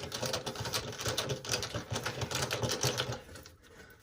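Rapid crinkling and clicking of flexible aluminium dryer duct being handled and worked onto the wall duct, dying away about three seconds in.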